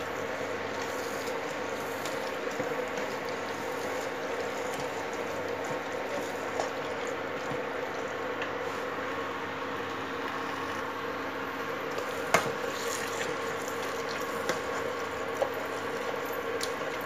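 Potato masher pressing and working boiled vegetables and masala in a nonstick pan: soft squelching with a few sharp clicks of the metal masher knocking the pan, the loudest about twelve seconds in. A steady hum and cooking hiss run underneath.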